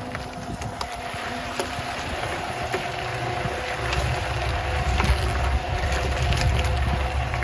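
Portable concrete mixer running with a steady motor hum, its drum churning a batch of concrete. A low rumble grows louder about three seconds in, with scattered clicks and knocks from the mix.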